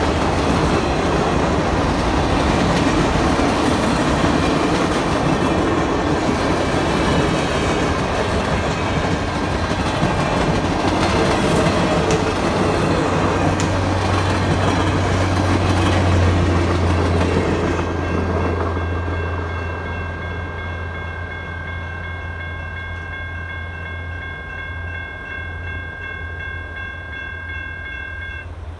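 A passenger train of stainless-steel coaches rolling past over a grade crossing for about the first two-thirds, with the General Signals electronic crossing bells ringing through it. Once the train has passed, the bells ring on alone, steady and clear, and stop shortly before the end.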